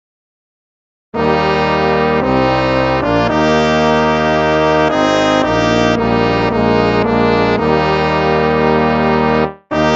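Instrumental hymn music in sustained, chordal, held notes that change at a slow, steady pace. It begins about a second in, after silence, and breaks off briefly near the end before going on.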